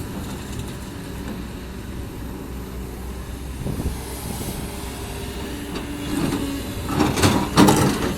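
Kobelco SK200 excavator's Hino J05E diesel running steadily. From about halfway a hydraulic whine joins in as the engine takes load, with two loud rasping bursts near the end.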